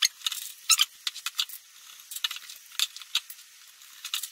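Light, irregular metallic clicks and ticks of bicycle spokes being threaded into a wheel: the spokes tap against one another, the hub flange and the rim as they are fitted. The clicks are loudest near the start.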